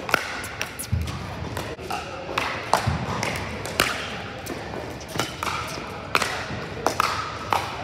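Pickleball rally: repeated sharp pops of paddles striking the plastic ball, with ball bounces and a few low thuds of footsteps, echoing in a large indoor hall.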